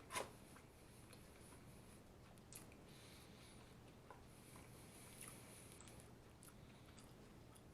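Faint chewing of a fast-food sandwich, with a sharp click just after the start and a few smaller clicks later, over a low steady hum.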